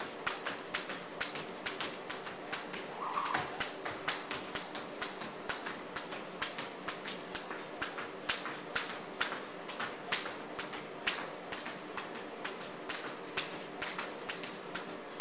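Skipping rope slapping a wooden gym floor on each turn, with light foot landings, in a quick, steady rhythm of sharp slaps, about four a second.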